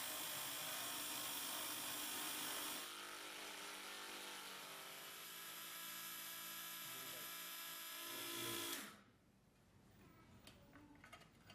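XENDOLL mini milling machine running steadily with a whine while milling a rectangular opening in a part held in a vise. The sound drops a little about three seconds in and cuts off suddenly near the end, followed by a few faint clicks.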